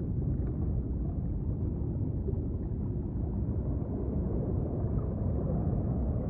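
Underwater ambience sound effect: a steady, low, muffled rumble with no distinct events.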